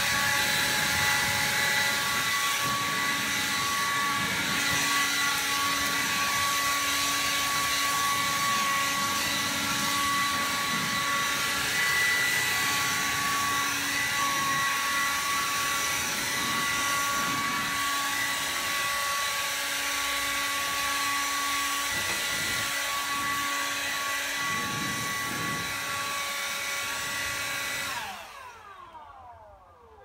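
DeWalt cordless leaf blower running steadily with a high whine. It is switched off about two seconds before the end and winds down in falling pitch.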